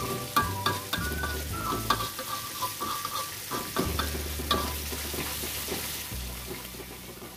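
A metal spatula stirring and scraping a watery chili spice paste as it sizzles in a metal wok, with frequent short clicks of the spatula against the pan over a steady sizzle. The paste is being stirred so the seasoning soaks in and mixes evenly while it cooks down.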